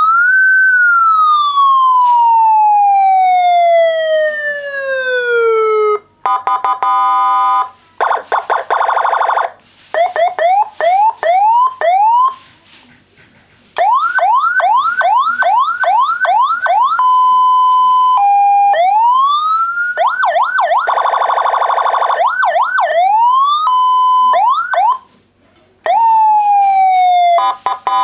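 Loud electronic vehicle siren unit switched through its tones: a quick rise into a long falling wail, buzzing horn blasts, runs of fast rising whoops, and short steady beeps. Each tone starts and stops abruptly.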